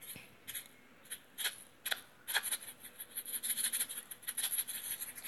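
Short scuffing sounds about twice a second, then, from about two seconds in, a denser run of scratchy rustling.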